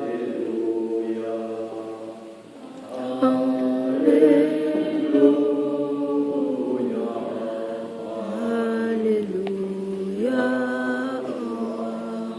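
Church congregation singing a slow hymn together, holding long notes, growing louder about three seconds in.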